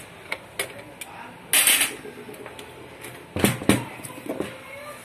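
Metal clinks and knocks from a small Shakti sewing machine head being handled and turned over while it is taken apart. There is a short scraping rasp about one and a half seconds in, then two heavy knocks a little after three seconds in, with lighter clicks between.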